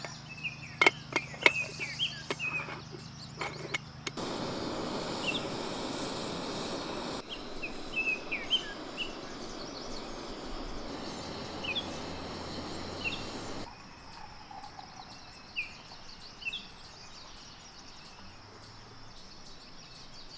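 Small birds chirping over outdoor ambience, with a few sharp clicks in the first two seconds and a steady rushing noise from about four to fourteen seconds in. The background changes suddenly three times.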